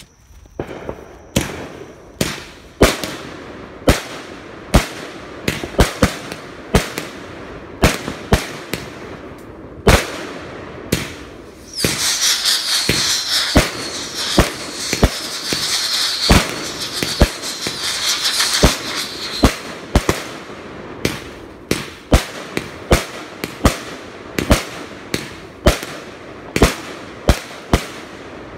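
Aerial fireworks going off in quick succession: sharp bangs, about one or two a second, as shots launch and burst overhead, with a dense hiss for about eight seconds near the middle.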